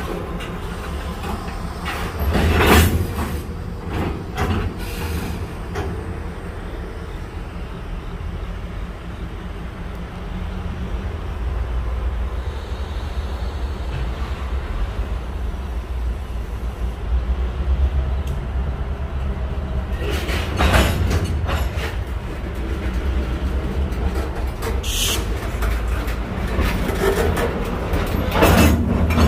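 Freight train on the move: a steady low rumble of rolling cars, broken by a few sharp knocks, the loudest about three seconds in and another around twenty-one seconds.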